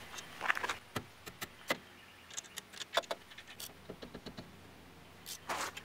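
Scattered light metallic clicks and clinks of a small socket and ratchet being fitted to and worked on the rear brake caliper's bolts.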